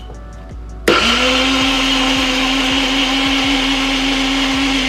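Electric mixer grinder blending soaked moong dal, quinoa, onion and ginger without water into a thick batter. The motor starts suddenly about a second in, its whine rising briefly as it spins up, then runs steadily.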